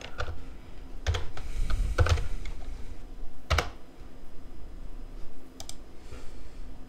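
Keystrokes on a computer keyboard: a few separate presses with pauses between them, the loudest about one, two and three and a half seconds in.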